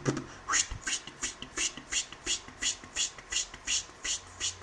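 Cartoon sound effect: a regular run of short hissing puffs, about three a second.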